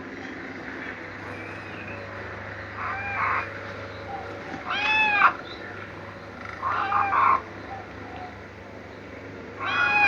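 Kitten mewing: four short calls that rise and fall in pitch, a couple of seconds apart, over a steady low hum.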